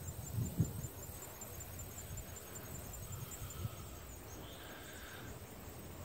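Quiet outdoor ambience: faint insects chirping, a high pulse repeated about five times a second, with a few soft low knocks from the hand-held jar and microphone in the first second.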